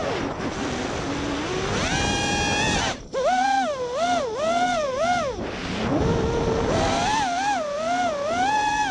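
Brushless motors (Emax RS2205 2300kv) spinning 5-inch 3D props on an FPV quadcopter, heard from the onboard camera: a high whine that rises and falls in pitch over and over as the throttle is worked, cutting out briefly about three seconds in before picking up again.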